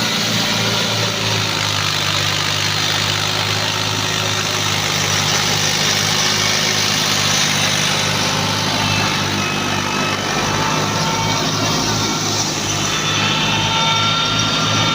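Tractor diesel engine running steadily while working a wheat thresher, with a continuous low throb and the thresher's machinery noise over it.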